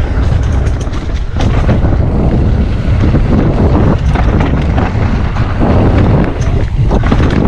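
Wind buffeting an action camera's microphone during a mountain bike descent, with tyres running over a rough trail and frequent short clatters and knocks from the bike.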